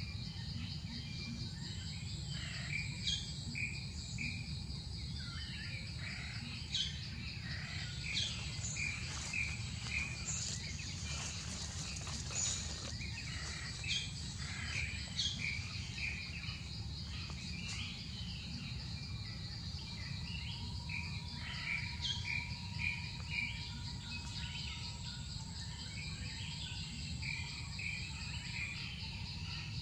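Forest ambience: many short bird chirps and calls over a steady high insect drone, with a low steady rumble underneath.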